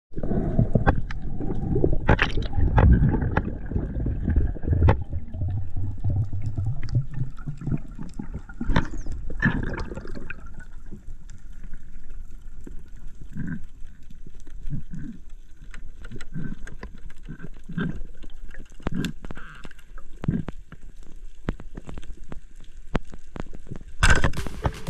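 Water heard underwater: a low rushing, gurgling rumble, strongest in the first ten seconds and then quieter, scattered with many sharp clicks and crackles. Music starts near the end.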